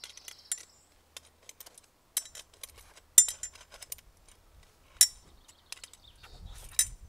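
Metal parts of a chainsaw mill clicking and clinking as a rail is handled and fitted into its bracket by hand, with sharper metallic knocks about three and five seconds in.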